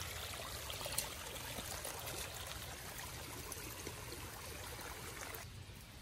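Rainwater runoff running fast down a shallow ditch, a steady rush of water that cuts off sharply near the end.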